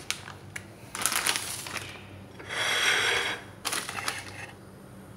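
Plastic instant-noodle packet crinkling and rustling as it is picked up and handled. It comes in three bursts, the loudest about halfway through.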